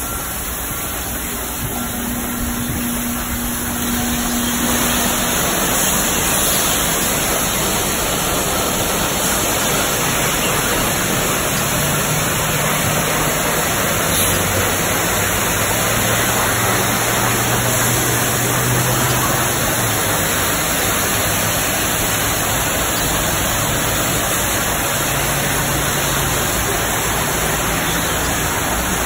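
Belanger SpinLite tunnel car wash running on a car: a steady hiss of high-pressure water spray with the spinning foam brushes slapping over the bodywork, growing louder about four seconds in. A low hum joins in partway through.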